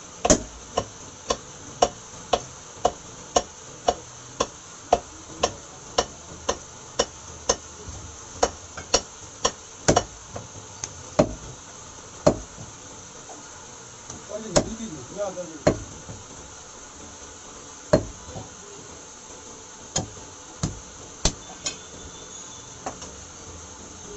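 Heavy butcher's cleaver chopping meat on a round wooden chopping block: sharp strokes at a steady pace of about one and a half a second, thinning out to a stroke every second or two after about ten seconds.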